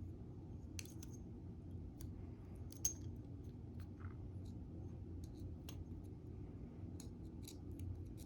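Scattered light clicks and ticks of small lock parts and tools being handled while a door lock cylinder is worked on, with one sharper click about three seconds in, over a faint low hum.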